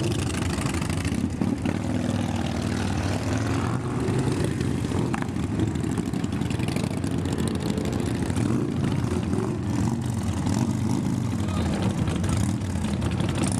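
Motorcycle engines running as cruiser motorbikes pull away one after another, a steady low rumble throughout.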